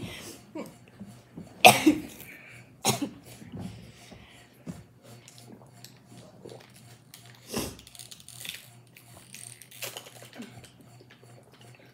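A few short, scattered coughs and knocks over a faint steady low hum, the loudest about two seconds in.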